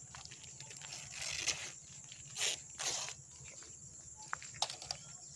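Dry palm leaves and a plastic packet rustling and crinkling as they are handled, in a few short bursts, with some sharp clicks near the end.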